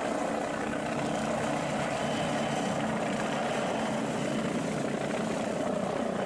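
Police helicopter, an MBB Bo 105, flying low: steady rotor and turbine engine noise.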